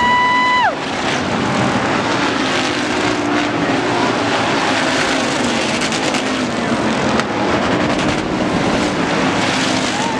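Hobby stock race car engines running at racing speed. A car's engine note climbs and holds as it passes close, then cuts off under a second in. After that the field is heard as a steady mass of engine noise from across the track, and another car's engine note climbs again near the end.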